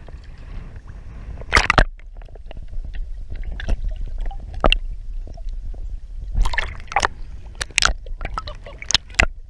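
Water splashing and sloshing in sharp, irregular bursts, one about a second and a half in and several more through the second half, over a steady low rumble of wind on the microphone.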